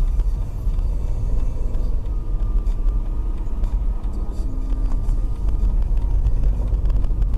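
Steady low rumble of a car driving, engine and road noise as picked up by a dashcam microphone inside the cabin.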